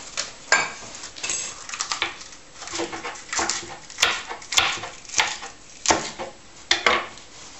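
Kitchen knife knocking on a plastic cutting board while cucumber and tomato are cut: about ten sharp, irregularly spaced knocks.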